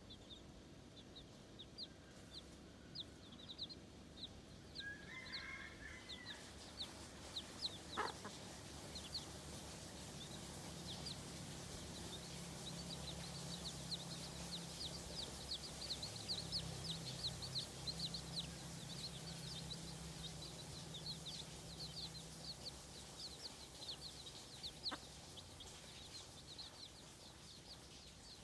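Baby chicks peeping: many short, high, falling cheeps in a rapid, overlapping stream, with a single sharp click about eight seconds in.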